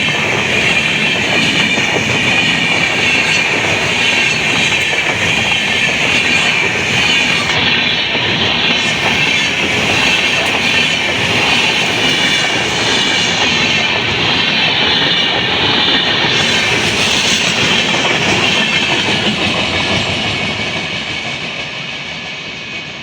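A train passing close by on the track: a steady rumble and rattle of wheels on rails that fades away near the end.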